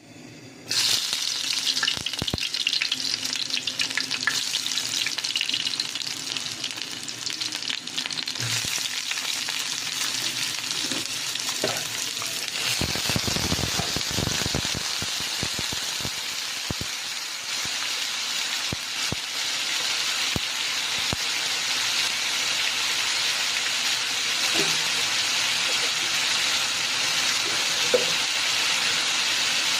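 Food frying in hot oil in a pan, a steady sizzle that starts abruptly about a second in, with scattered clicks of a spatula stirring against the pan.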